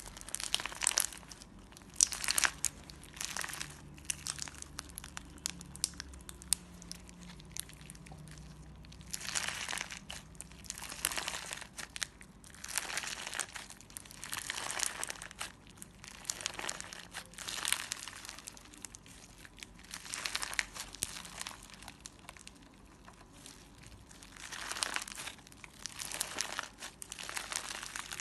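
Clear slime being worked by hand, crackling and popping in repeated bursts every second or two.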